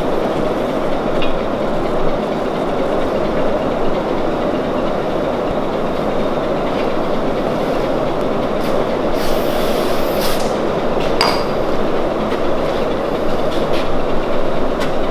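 Steady, loud mechanical drone with no clear pitch. Around nine to eleven seconds in, a steel tube scrapes and then clanks once with a short metallic ring as it is seated in the tube bender.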